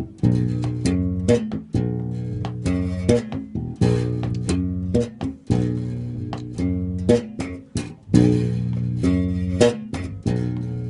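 Five-string electric bass played fingerstyle in a flamenco rhythmic pattern: plucked, ringing notes with accented picado notes and sharp, muted ghost-note clicks in between.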